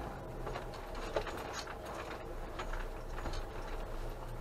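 Inside a slow-moving motorhome: a steady low engine hum, with scattered light clicks and rattles.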